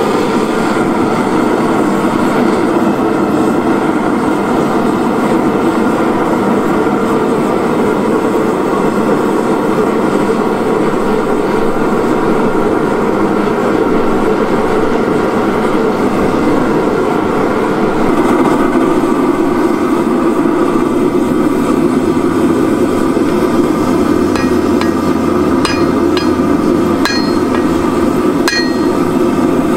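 Propane forge burners running with a steady rushing hiss while a steel billet heats. In the last few seconds, a series of hammer blows lands on the glowing billet at the anvil, each with a short metallic ring, as the forge weld is set.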